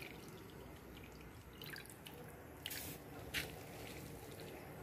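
Grated raw potato dropped by hand into a pot of boiling water, giving three short wet splashes and drips about a second apart over a faint steady background.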